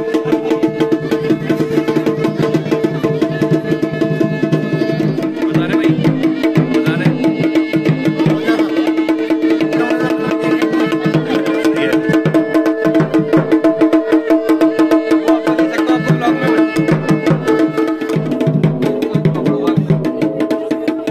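Music with fast, dense drumming under steady held notes, in a traditional Indian style.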